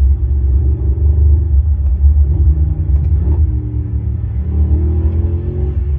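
A car's engine running with a loud, deep low rumble, its pitch drifting slightly up and down.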